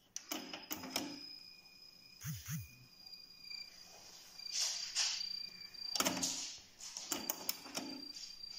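Pioneer CT-W630R cassette deck's Deck 1 clicking into play, then its tape transport squeaking during playback: a thin, steady high squeal with louder swells every second or so. The owner takes the squeak for a dry mechanism that needs oiling.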